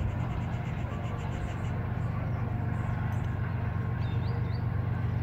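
Approaching diesel locomotive: a steady low engine drone that slowly grows louder. Birds chirp faintly over it, with a few short rising chirps near the end.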